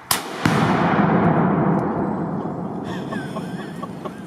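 A rifle shot, followed about half a second later by the much louder blast of a 2-pound Tannerite binary target exploding 100–150 yards away, its boom rumbling and fading away over the next few seconds.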